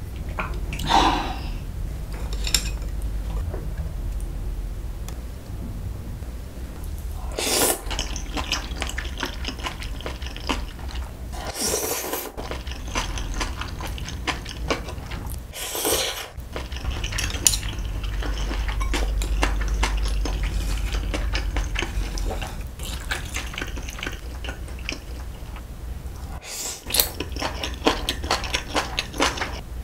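Close-up eating sounds: metal chopsticks clicking against dishes while japchae glass noodles are slurped and chewed, with several louder slurps.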